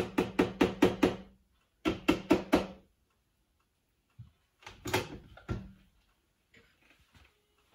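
Spatula knocking and scraping against the plastic bowl of a Cuisinart food processor while thick hummus is worked out of it, in two quick runs of rapid taps. Later come a thud and a few clunks of the bowl being handled and lifted off its base.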